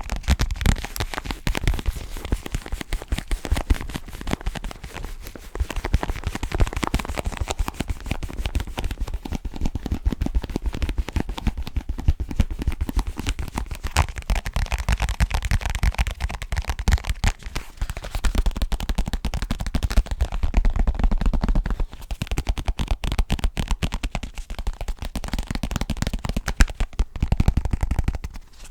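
Rapid, dense fingertip tapping on hard objects, close to the microphone, with many quick taps and knocks that carry a deep thump.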